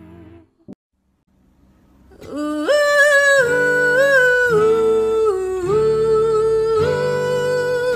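Music: one song ends and about a second of near silence follows, then the next song begins about two seconds in with a woman singing long wordless held notes that step between pitches over a quiet acoustic backing.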